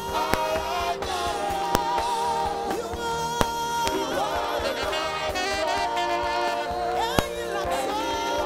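Live gospel praise music: a woman singing held, wavering notes over a live band, with a few sharp drum hits.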